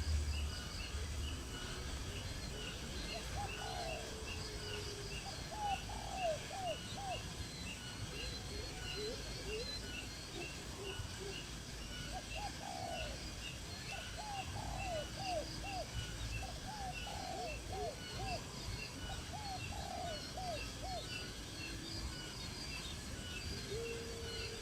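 Birds calling: every few seconds a cluster of short, quick low notes, over a steady, rapidly repeating high chirping.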